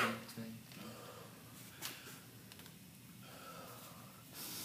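A man catching his breath after hard exertion, breathing in through the nose and out through the mouth, faint, with a stronger breath out near the end.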